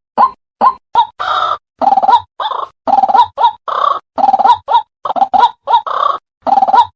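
White-breasted waterhen (ruak-ruak) calling: a run of short, sharp notes about three a second, then from about a second in, longer harsh notes alternating with the short ones in a rapid, unbroken rhythm.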